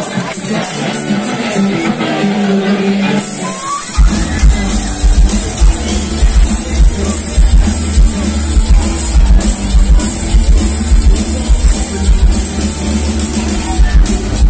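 Loud live band music from a dance orchestra on a stage. A singer goes over light backing at first; then, about four seconds in, the full band comes in with drums and a heavy, steady bass beat.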